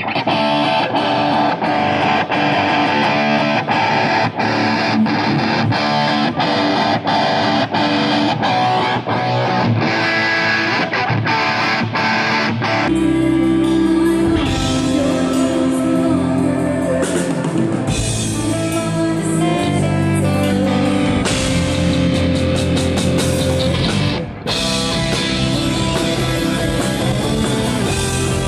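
Rock band playing: electric guitar over a drum kit keeping a steady beat. About 13 seconds in, bass comes in and the sound fills out, with a brief drop just after 24 seconds.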